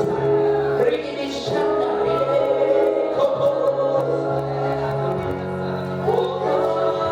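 Gospel church music: a choir singing over held instrumental chords.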